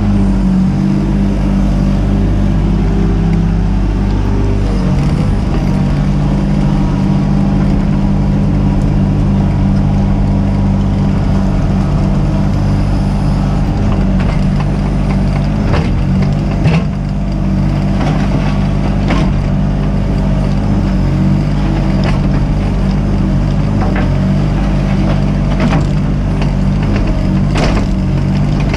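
Mini excavator's diesel engine running steadily, with scattered sharp knocks joining in from about halfway through.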